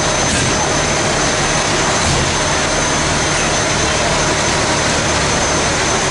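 Fire trucks' diesel engines running steadily at close range, a loud, even rumble and rush with no siren.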